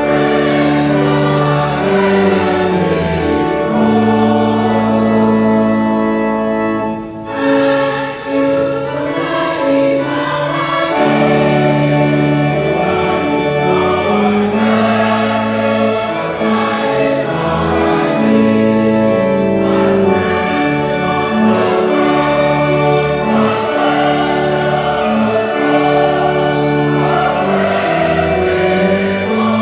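Church choir singing a hymn in full harmony, with held organ chords beneath. The music drops briefly about seven seconds in, between phrases.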